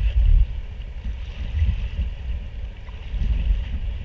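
Wind buffeting an action-camera microphone as an uneven low rumble, loudest at the start, over a steady hiss of river water around a paddled raft.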